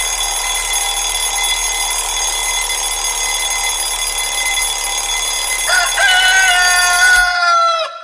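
Alarm tone of a rooster crowing: a steady hiss with fixed tones, then about six seconds in one long crow that falls slightly in pitch and cuts off just before the end.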